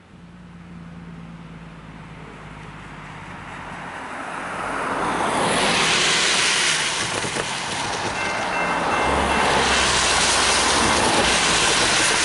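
Cars passing close by on a wet road, their tyre hiss loudest about six seconds in and again from about eight seconds on. About eight seconds in, the railway crossing's warning bell starts a steady high ringing as the crossing signals activate for an approaching train.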